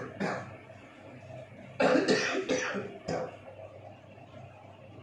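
A man coughing: two short coughs at the start, then a louder run of about three coughs around two seconds in.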